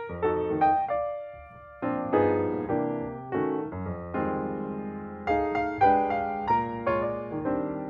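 Background piano music: a run of struck notes, each ringing and fading, softer for a moment about a second in.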